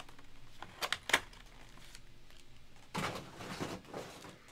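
A cardboard trading-card box being handled and opened, with two sharp clicks about a second in, then the rustle of a foil-wrapped card pack being pulled from its foam insert about three seconds in.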